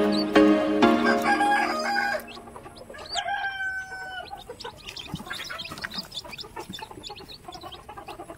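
Background music stops about two seconds in. Newly hatched chicks then peep in short, high chirps, with one longer, lower held call about three seconds in.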